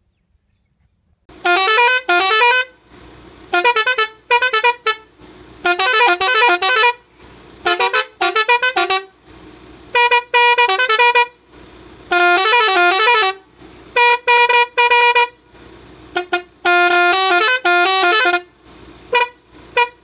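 Roots Hexatone six-tone musical air horn sounding loudly in a series of about a dozen blasts, starting about a second in, each blast stepping quickly through several pitched notes like a tune, with short gaps between.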